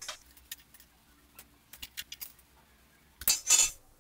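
A metal spatula clicking and scraping against a ridged grill pan as grilled momos are lifted off, with a louder rasp lasting about half a second near the end.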